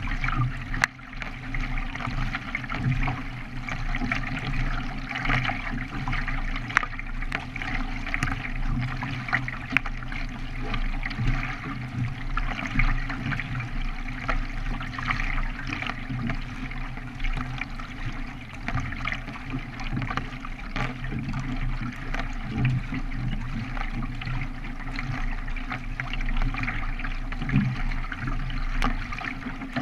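Water splashing and rushing against a K1 racing kayak as it is paddled along a creek, continuous and unbroken, with a low steady rumble underneath.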